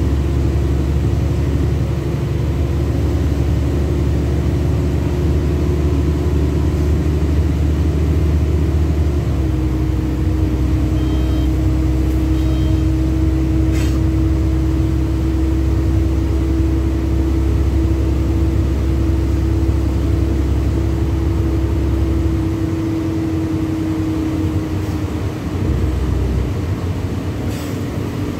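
Inside a LiAZ-6213.65 articulated city bus on the move: a steady low engine and road rumble, with a steady droning tone through the middle that fades out about three-quarters of the way through as the rumble eases, and a couple of faint clicks.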